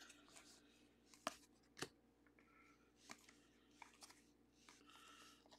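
Near silence broken by a few faint, short clicks and a soft rustle near the end: baseball trading cards being flipped through in the hand, one sliding off the stack onto the next.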